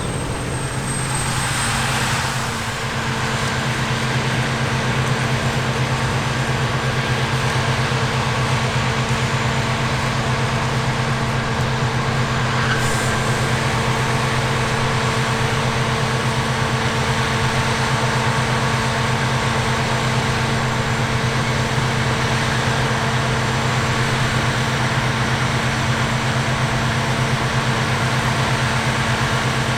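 Large diesel-powered harvest machinery running at a steady, constant load, with an even engine hum.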